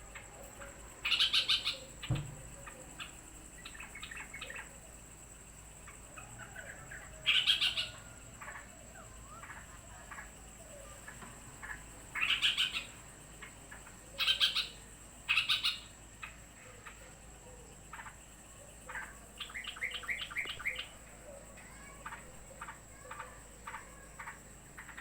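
Yellow-vented bulbuls (trucukan) calling excitedly, an agitated reaction to another bird arriving. Loud bursts of chattering calls come every few seconds, with scattered short chirps between them and a quick run of notes about twenty seconds in.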